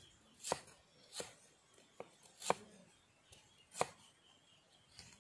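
Cleaver chopping on a thick wooden chopping block: about six separate knocks, spaced unevenly about a second apart.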